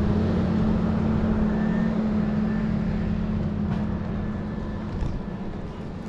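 A motor vehicle's engine running nearby with a steady low drone that fades out about five seconds in.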